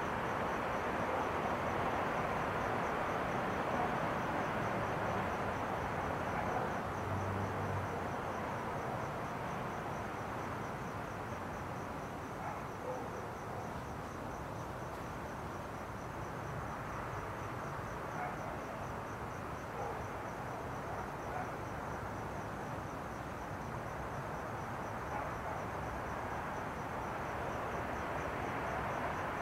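Outdoor night ambience: a cricket chirping faintly and evenly in a rapid high pulse over a steady broad rushing background noise.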